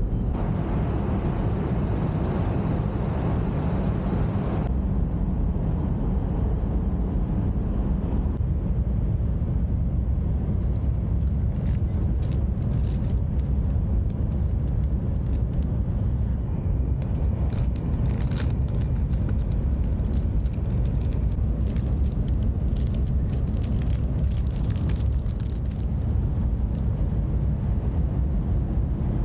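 Steady low running noise of an E5-series Shinkansen travelling at speed, heard inside the passenger car. Through the middle and latter part, a plastic bread wrapper crinkles in rapid, irregular crackles as it is handled.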